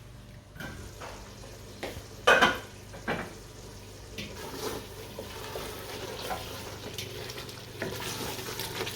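Mutton and masala sizzling as they fry in a cooking pot while being stirred with a spoon, with a few knocks of the spoon against the pot, the loudest about two seconds in.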